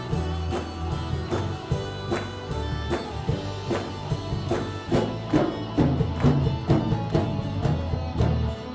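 Instrumental music from a band: guitar and bass chords with a steady drum beat and no singing.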